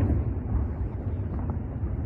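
Fireworks salute: a low rumble of echoing bursts, fading slightly, with a faint pop about one and a half seconds in.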